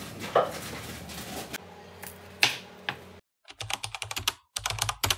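A few knocks and rustles as groceries go into a refrigerator, then, after a brief silence about three seconds in, a keyboard-typing sound effect: two quick runs of rapid clicks.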